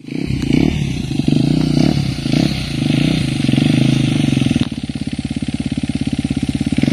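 Dirt bike engine running, louder for the first few seconds, then dropping to a quieter, even beat about two-thirds of the way through.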